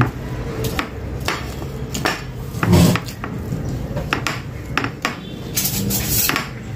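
Tableware clinking and scraping during a meal: a spoon and fingers knocking against plates in short, irregular clicks, with the small mouth noises of eating.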